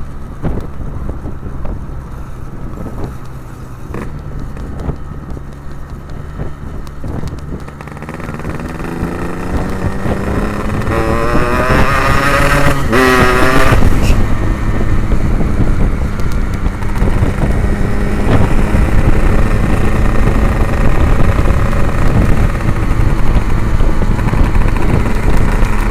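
Yamaha RX-King two-stroke single-cylinder motorcycle running through an Abbox C20 aftermarket exhaust. It holds steady at first, then from about eight seconds in the revs climb, peaking and breaking off about thirteen seconds in, after which it runs louder and steady.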